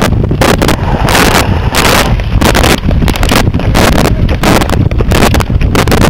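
Wind buffeting the microphone of a camera carried by a skater skating at speed, with irregular loud rasping bursts throughout.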